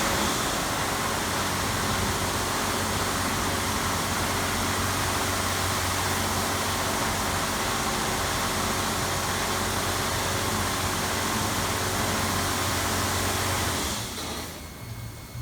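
Touchless S9 car wash machine running: a steady rushing noise over a low hum, which drops off sharply about fourteen seconds in.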